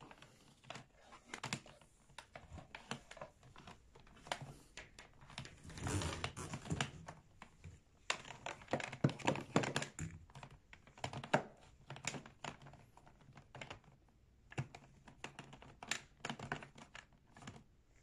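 Irregular clicks, taps and rustles of hands moving a tub vacuum cleaner's coiled power cord, plastic handle and ribbed hose, busiest a few seconds in and again midway; the vacuum's motor is not running.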